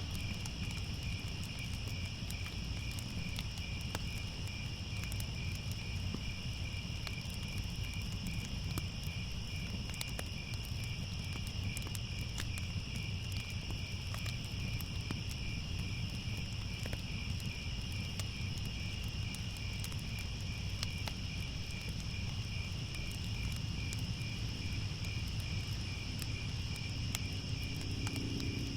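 Crickets chirping in a continuous, fast-pulsing trill over a low rumble, with scattered faint crackles of a fire. A brief low tone sounds near the end.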